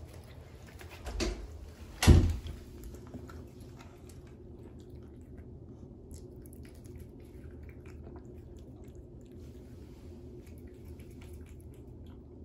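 A cat chewing raw duck feet, faint small wet clicks of its eating over a low steady hum. Two thumps about one and two seconds in, the second much louder.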